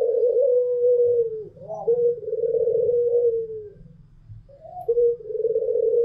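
Puter doves (domestic ringneck doves) cooing in long drawn-out, steady coos of about two seconds each. A coo is already under way at the start, and two more follow about two and five seconds in, each opened by a short higher note.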